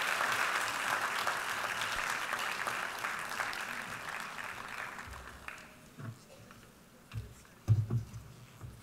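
Audience applauding, fading away over about five seconds. A few low thumps follow near the end.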